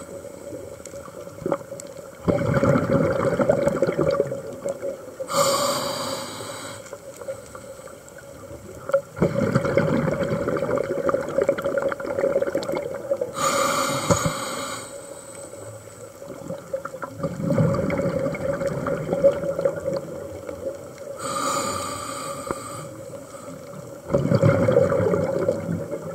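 A scuba diver breathing through a regulator underwater: a short hissing inhalation, then a longer bubbling rush of exhaled air, repeating about every eight seconds.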